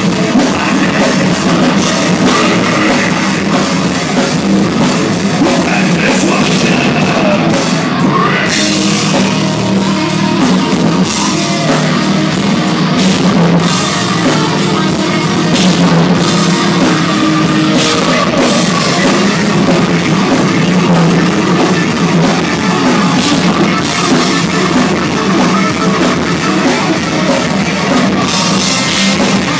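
Thrash metal band playing live: distorted electric guitars, bass and a pounding drum kit, loud and dense.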